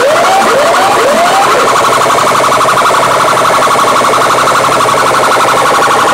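Big horn-loudspeaker DJ sound rig blasting a siren-like alarm effect at full volume. It starts with a few quick rising whoops in the first second and a half, then settles into a steady, rapidly pulsing high alarm tone.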